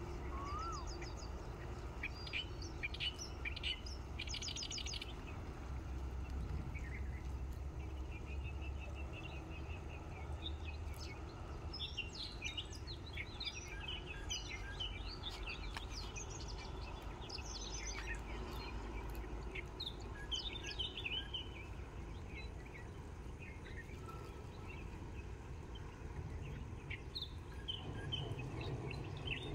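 Small birds chirping and trilling in scattered bursts, busiest in the first few seconds and again through the middle, over a low steady rumble.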